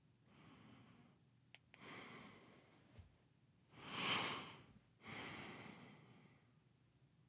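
A man, sleepless and restless, breathing heavily and sighing: about four long breaths, the loudest about four seconds in. A small click and a soft thump come between them.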